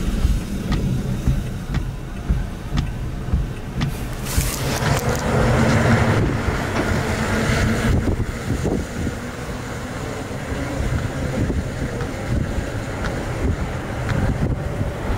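Strong wind buffeting the microphone in a low, rumbling rush, gusting harder from about four seconds in to about eight seconds.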